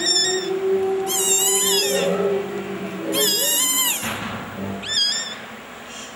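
Very young kitten mewling: a string of shrill, wavering cries, each about a second long.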